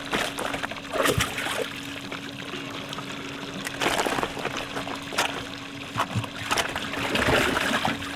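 Water splashing and trickling, with louder splashes about a second in, around four seconds and near the end, over a faint steady hum.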